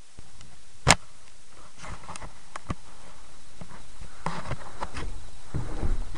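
Handling and movement noise from a camera carried by a moving player: rumbling and scattered light knocks and clicks, with one loud, sharp crack about a second in.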